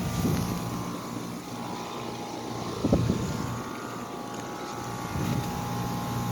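Outdoor unit of an American Standard Silver Series heat pump running in heat mode, giving a steady, smooth hum from its scroll compressor and fan. Three short dull bumps cut in, the loudest in the middle.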